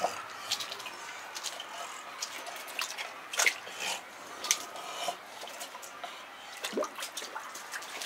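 Scattered drips, small splashes and sharp clicks at irregular intervals as a cormorant shifts a large fish in its bill above a bucket of water, the fish's tail dipping into the water.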